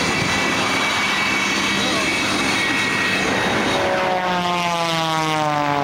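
Propeller airplane engine running steadily, then passing by about four seconds in, its pitch falling as it goes.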